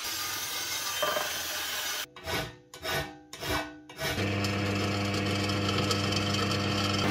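Rasping, scraping noise with three separate strokes, then from about four seconds in a steady mechanical hum, like a small motor or power tool running.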